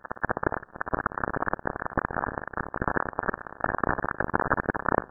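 Saturn radio and plasma waves recorded by the Cassini spacecraft and converted into audio: a dense, irregular crackling static of rapid clicks and pops, dull with no high end.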